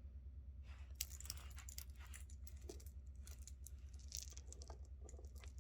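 Faint scattered clicks and small rattles of costume jewelry being handled, acrylic beads and metal chain and clasps knocking together, over a steady low hum.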